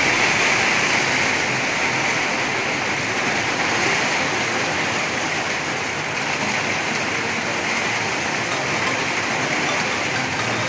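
Heavy rain pouring onto a wet road, a steady dense hiss of drops splashing on the water-covered surface.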